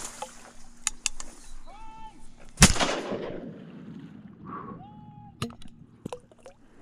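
A single shotgun blast from a 20-gauge single-shot, about two and a half seconds in, with a long echo trailing off over the water. A few sharp clicks come before and after it.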